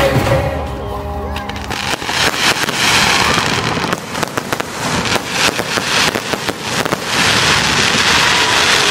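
Aerial fireworks bursting, with rapid cracks and bangs over a crackling, fizzing hiss. It swells about three seconds in and again near the end.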